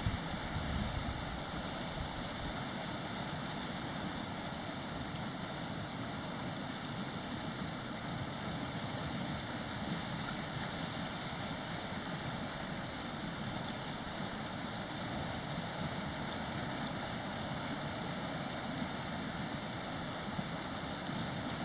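Steady rushing outdoor background noise, even throughout, with no distinct bird calls or splashes standing out.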